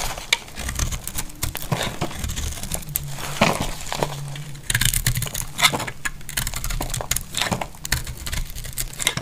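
A utility knife blade cutting thin plates off a bar of dry, brittle soap: many quick, crisp cracks and crunches as the soap breaks away.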